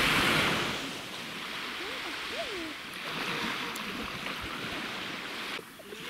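Small waves washing onto a sandy beach: one louder surge at the start, then a steady wash, cut off shortly before the end.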